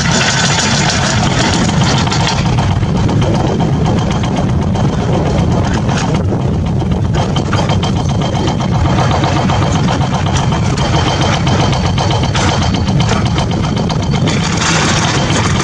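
A motor running steadily, an even, continuous engine-like drone with a fine rapid pulse.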